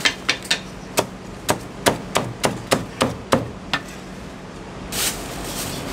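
A heavy cleaver chopping crispy-skinned roast pork belly on a thick wooden chopping block: about a dozen sharp chops at an uneven pace over four seconds. A short swish follows near the end.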